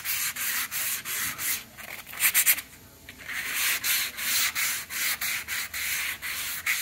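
Hand sanding with a small piece of sandpaper, shaping hardened white putty on a painted MDF cabinet door. Quick back-and-forth rubbing strokes come about three a second, with a short pause about three seconds in.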